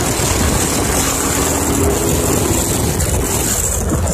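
Predator 212cc single-cylinder four-stroke engine on a mini bike running steadily under way, mixed with an even rushing noise.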